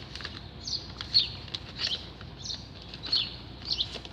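Short, high chirps that fall in pitch, repeating about every half second to second, with faint crinkling clicks among them.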